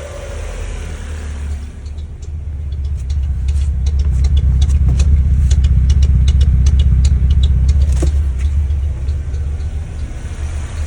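1994 Mazda Miata's 1.8-litre four-cylinder engine idling with a steady low rumble, growing louder a couple of seconds in. Irregular sharp clicks run through it, with a stronger one about eight seconds in. The engine is misfiring at idle because of a failed, clogged fuel injector.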